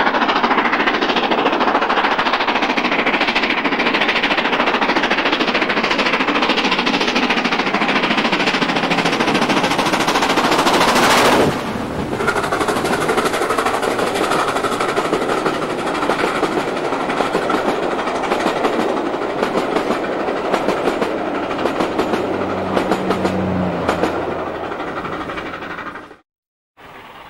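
LMS Black Five 4-6-0 steam locomotive No. 45407 working hard with a rapid exhaust beat as it comes up and passes close by, loudest about eleven seconds in. Its coaches then roll past with a regular clickety-clack over the rail joints, and the sound cuts off abruptly near the end.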